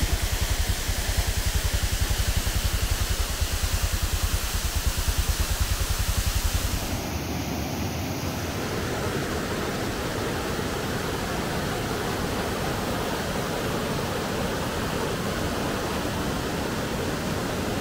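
Rushing water of a waterfall with a fluttering low rumble, then, about seven seconds in, the steadier rush of whitewater rapids on a rocky river.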